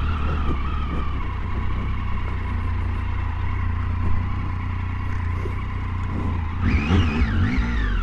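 Triumph Tiger 800's three-cylinder engine running at low speed as the motorcycle rolls slowly over a dirt track and pulls up. About seven seconds in, a brief wavering high-pitched sound rises and falls over the engine.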